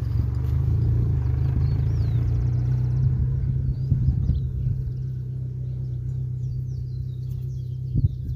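Steady low rumble of wind buffeting the microphone, with birds chirping faintly over it and a single thump near the end.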